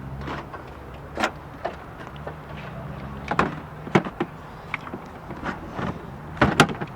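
Car engine running with a steady low hum, under a scattering of sharp clicks and knocks, the loudest cluster near the end.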